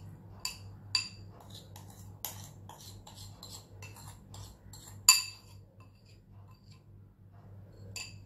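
Metal spoon scraping and tapping against a small ceramic bowl as brown sugar is knocked out of it, a run of light clinks with one sharp, loud clink about five seconds in and a last one near the end.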